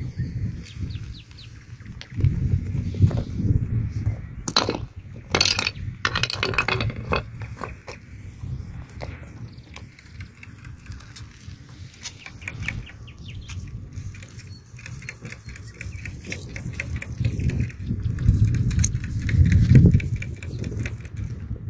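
Stones clicking and knocking together as they are handled. Later comes the hiss and clicks of a trigger spray bottle squirting water over a stone. An uneven low rumble lies under it all.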